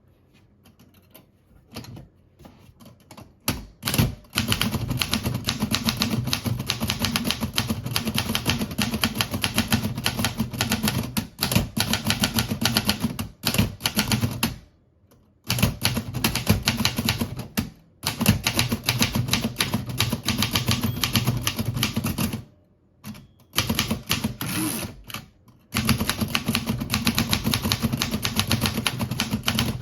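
Remington Rand De Luxe Model 5 manual typewriter being test-typed. A few scattered keystrokes are followed by a fast, continuous run of type bars striking the platen, broken by a few short pauses.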